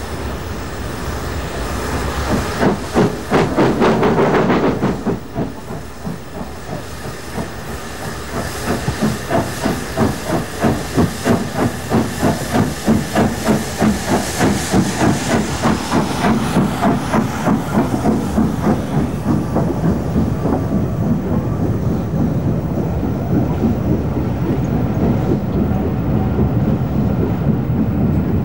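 LNER Pacific No. 4472 Flying Scotsman's three-cylinder exhaust beating as it pulls away with a train, roughly two to three beats a second and slowly quickening. A loud rush of steam lasts a couple of seconds near the start, and the beats give way to a steadier rolling sound of engine and coaches near the end.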